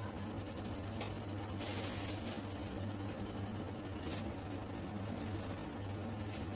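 Felt-tip sketch pen scratching and tapping on paper in quick, short dash strokes, as a drawing is coloured in. A steady low hum runs underneath.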